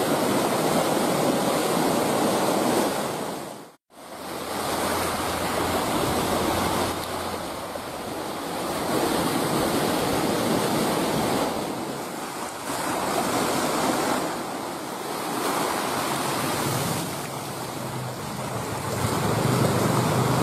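Sea waves breaking and washing over a rocky shore, swelling and easing every few seconds, with wind on the microphone. The sound cuts out briefly about four seconds in.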